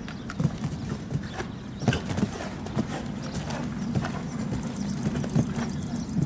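Hoofbeats of a show-jumping horse cantering on grass turf, coming as uneven dull strikes, with a louder strike about two seconds in and another near the end.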